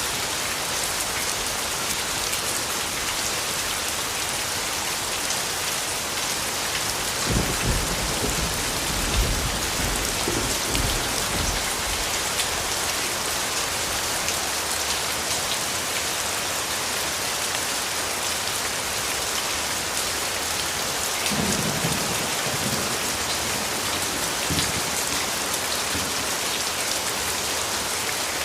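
Steady, dense rain falling, an even hiss. Low rumbles of thunder swell about seven seconds in and again past twenty seconds.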